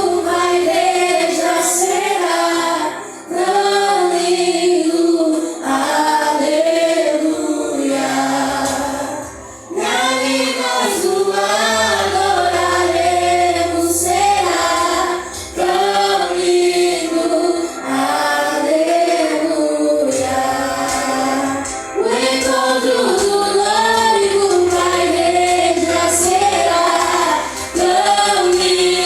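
Christian worship song sung by a vocal group, female voices leading in sung phrases, over instrumental backing with a bass line.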